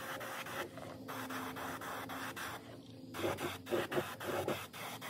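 Airbrush spraying paint onto a lure blank: a steady hiss of air and atomised paint, with the trigger let off twice for a moment, about a second in and again near three seconds, before spraying resumes.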